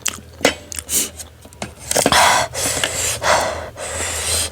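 A woman breathing hard in and out through her mouth, with gasps and hissing breaths from the chilli heat of Korean 3x spicy ramen, broken by short clicks of eating.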